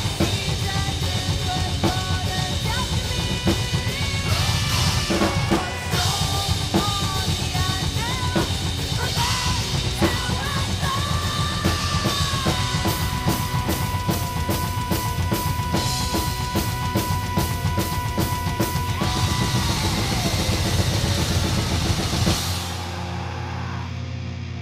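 Metal drum playthrough on a Pearl Masters MCX kit over the band's recorded song: fast bass drum and cymbal strokes under distorted guitars and a held lead melody. Near the end the drums stop and sustained guitar notes ring on alone.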